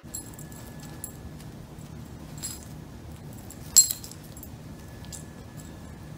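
Light metallic jingling and clinking from a puppy's collar tags as it play-wrestles with a cat, with one louder sharp clink a little under four seconds in, over steady low background noise.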